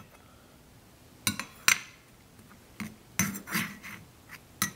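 A spoon clinking and knocking against a bowl and the metal can sitting in it: a few separate sharp clinks, with a short cluster about three seconds in.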